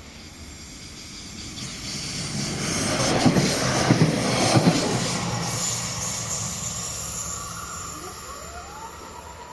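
Electric multiple unit passing at speed: a rush of wheels and air that swells, peaks with a few sharp wheel knocks over the rail joints, then fades as it goes away. Near the end a rising whine settles into a steady tone.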